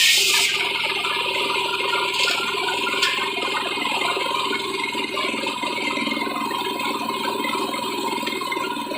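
A running machine rattling steadily, with a couple of brief high clicks about two and three seconds in.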